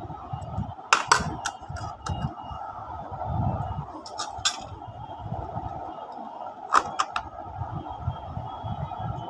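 Matador tin geometry box and its compass and plastic tray being handled: small clicks and clinks of metal and plastic, in clusters about a second in, around four seconds and near seven seconds, over a steady background hum.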